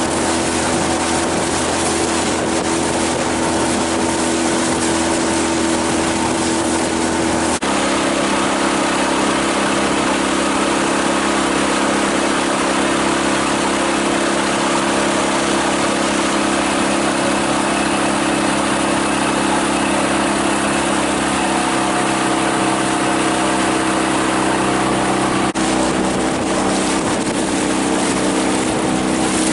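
Outboard motor running steadily under way, its hum over a constant rush of noise. The engine note shifts abruptly twice, about a quarter of the way in and again near the end.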